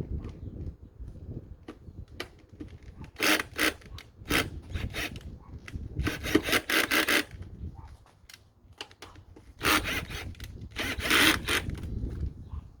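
Parts rubbing and scraping against each other in several short bouts while an aftermarket intake is worked into place on a small motorcycle's airbox.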